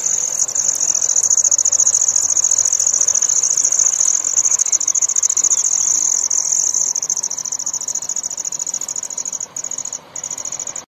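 Loud, steady, high-pitched insect trilling, a fast continuous chirr typical of crickets. It drops out briefly twice near the end.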